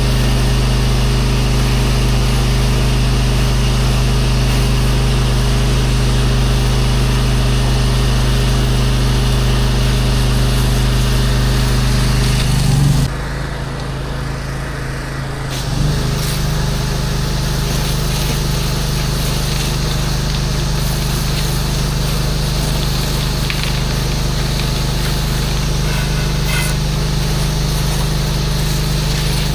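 Gas-engine pressure washer running steadily with the hiss of its spray. About thirteen seconds in the spray stops for two or three seconds and the engine note drops, then the spray and the full engine note come back.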